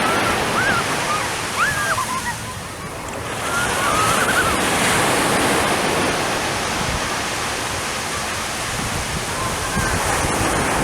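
Surf washing onto a sandy beach with wind buffeting the microphone, and gulls giving several short calls during the first half.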